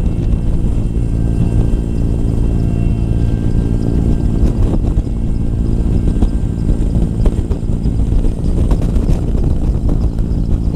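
Mi-8 helicopter's twin turboshaft engines and rotor running steadily at close range, a dense low hum, with wind rushing and buffeting over the microphone in the airflow under the fuselage.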